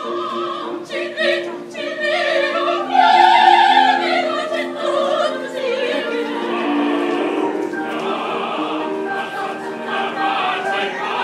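Opera singers singing a classical piece with vibrato, several voices together, over steady held lower notes. A long high note about three seconds in is the loudest moment.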